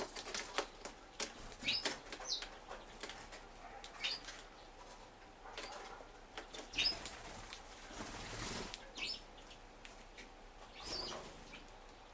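Small birds at a wooden feeder tray: wings fluttering as they land and take off, sharp pecking clicks on the wood, and short high chirps every second or two.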